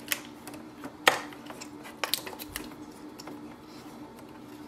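Small plastic clicks and knocks as an Epson EcoTank printer's ink tanks and their parts are handled and fitted into place, the sharpest click about a second in and another about two seconds in, over a faint steady hum.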